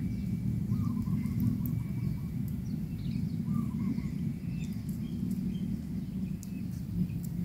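Faint, thin bird chirps and twitters over a steady low rumble.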